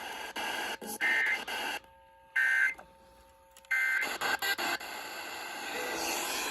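Emergency Alert System end-of-message signal: three short bursts of harsh two-tone SAME data warble, about a second and a half apart, heard over a radio receiver. Crackle comes before the bursts and a steady radio hiss follows them.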